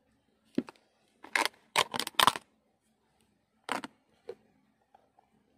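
A clear plastic candy tub being handled, its thin plastic crackling and clicking in a few short bursts. The loudest cluster comes about two seconds in.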